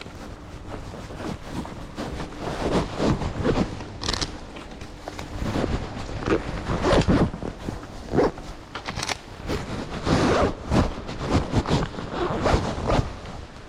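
Zippers on a motorcycle jacket being pulled open in a series of short strokes: the arm ventilation vents being opened.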